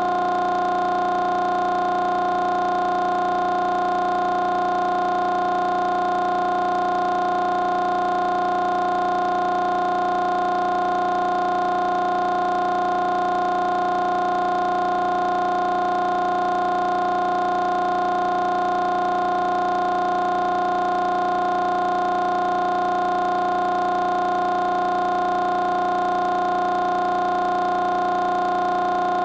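A loud, steady electronic tone of several pitches sounding together, unchanging in pitch and level.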